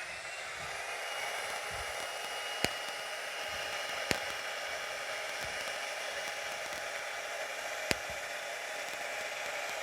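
Hair dryer blowing steadily, pushing poured acrylic paint outward into a bloom. Three brief sharp clicks cut through the steady rush.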